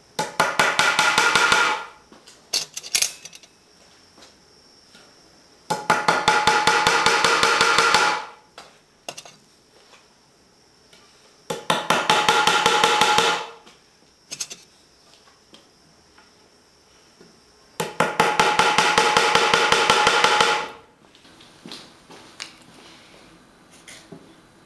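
A hammer driving nails into a wooden plank: four runs of rapid, light blows with a metallic ring, each about two seconds long, one nail after another. A few single clicks of nails being handled come between the runs.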